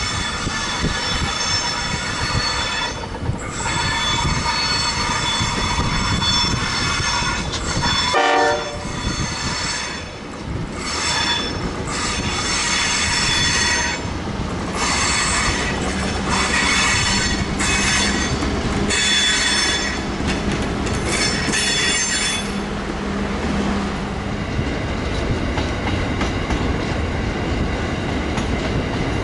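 CBH grain train of hopper wagons rolling round a curve, its wheels squealing in high, steady tones that come and go, over the rumble and clatter of the wagons. The squeal stops about 22 seconds in, leaving only the wagons rumbling and clattering past. A brief louder tone sounds about eight seconds in.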